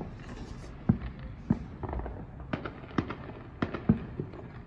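Fireworks going off: an uneven string of sharp bangs and pops, the loudest about a second in and again near the end.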